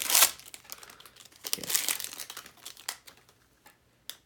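Baseball card pack wrapper crinkling as it is handled, loud at first, then in fainter crackles that die away, with a sharp click near the end.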